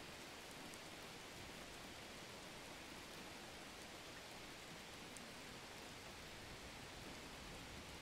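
Near silence: a faint, steady hiss of background noise.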